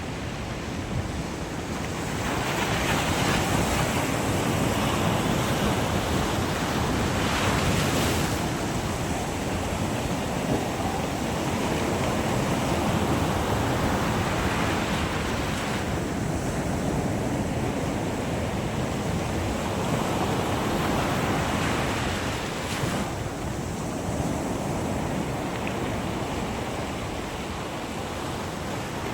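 Sea waves breaking on the shore: a steady wash of surf that swells into a louder break every several seconds.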